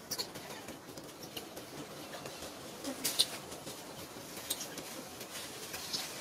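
Dry leaf litter crackling and rustling as a mother macaque and her newborn move about on it: scattered short, sharp crackles over a faint steady hiss, the loudest a little after three seconds in.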